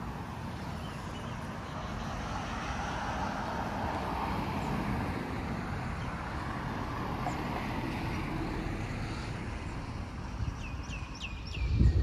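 Street traffic noise with a vehicle passing, its tyre hiss swelling and fading in the first half. Near the end a bird gives a quick run of about five short falling chirps, and a low thump comes just before the close.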